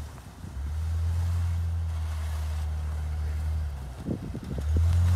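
2008 Jeep Wrangler Unlimited JKU's 3.8-litre V6 with Gibson headers and full exhaust, running at low, steady revs as the Jeep crawls through snow: a deep exhaust drone. It dips briefly at the start, falls away for about a second near the end, then comes back louder.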